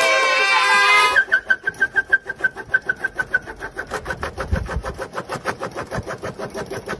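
Children screaming and shouting, cut off sharply about a second in. After that comes a rapid train of short, high-pitched beeps, about eight a second, which goes on steadily.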